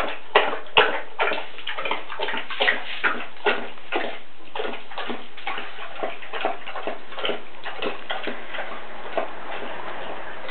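Basset hound lapping water from a glass bowl on a tiled floor: a steady run of wet laps and slurps, about two to three a second, the loudest in the first second or so.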